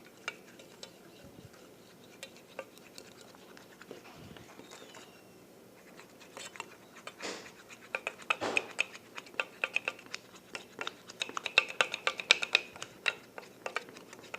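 A utensil clinking and scraping against a pot while stirring glue and food colouring into slime: irregular taps, some with a short ringing tone, getting busier and louder in the second half.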